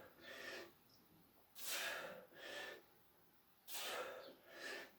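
A man breathing hard through a set of side-bend exercises: a forceful breath followed by a softer one, repeating about every two seconds in time with the movement.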